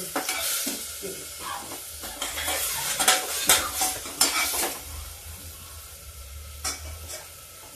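A metal slotted spoon scrapes and knocks against an aluminium pressure-cooker pot while stirring onions and tomatoes frying in oil and masala, over a steady sizzle. The stirring mostly stops after about five seconds, leaving the softer sizzle with a last knock or two.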